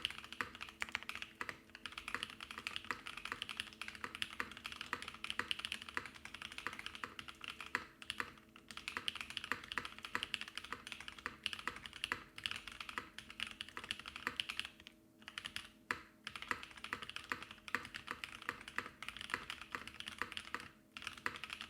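Fast, continuous typing on a Frog TKL mechanical keyboard with lubed Husky switches, a POM plate and GMK keycaps, with brief pauses about 8 seconds in, twice around 15 to 16 seconds, and near the end.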